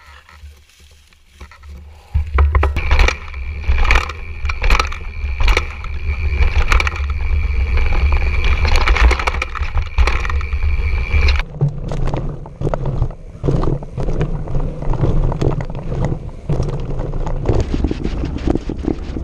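Mountain bike ridden fast over rough trail: tyre noise and frequent sharp knocks and rattles, with wind rumbling on the microphone. A steady high whine runs through the first half and stops abruptly about eleven seconds in, where the riding noise continues.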